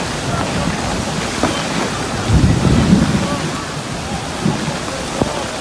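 Heavy rain pouring steadily. A short, low rumble comes about two and a half seconds in and lasts under a second.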